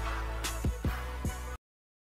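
Background music with a beat of deep bass drum hits that drop in pitch, cutting off suddenly about one and a half seconds in.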